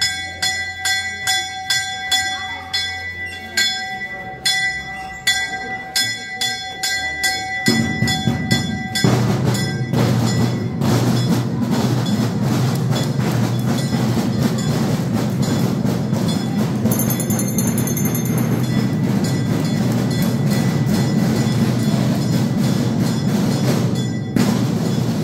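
A bell struck rapidly and repeatedly, about three strokes a second, its tones ringing on between strokes. After about eight seconds the ringing stops and a loud, dense, steady wash of sound takes over.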